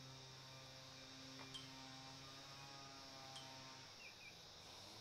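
Near silence: a faint steady electrical hum that fades out near the end, with a few faint high chirps.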